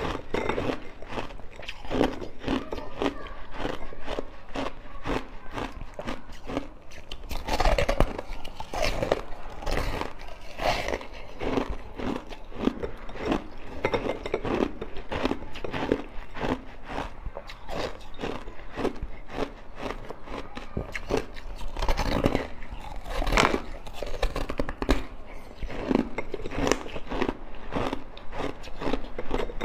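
Ice being bitten and chewed: irregular crunching bite after bite of ice dipped in passion fruit juice, louder near 8 s and 23 s.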